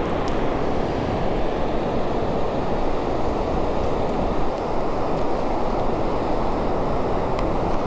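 Steady wash of ocean surf breaking on the beach, with wind rumbling on the microphone.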